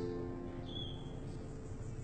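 Soft background music of slow, sustained notes, with a short high chirp about a second in.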